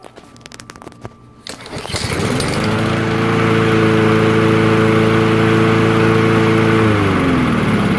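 Honda GCV160 lawnmower engine pull-started, catching about a second and a half in. It revs up, runs steadily, and its speed drops near the end. It runs on a newly fitted ignition coil that replaced a dead one.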